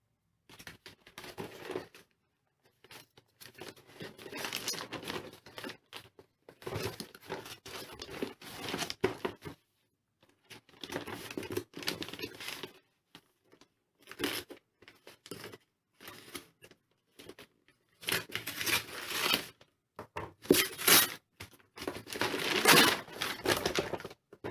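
Brown paper courier bag being cut open with scissors and torn, the paper crinkling as it is handled; irregular bursts with short pauses, loudest in the last third.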